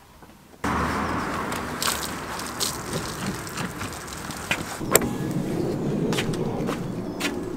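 About half a second in, a rushing noise starts suddenly: a wet car body being scrubbed by hand with a wash mitt, with a scatter of sharp clicks and knocks, the sharpest about five seconds in.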